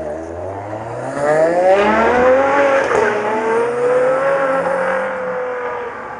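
Ferrari 599 GTO's V12 engine accelerating hard. The revs climb, drop briefly at a gear change about three seconds in, then pull up again and slowly fade as the car drives away.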